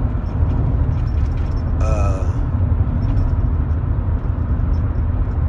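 Steady low rumble of vehicle noise, with a short voice sound from a man about two seconds in.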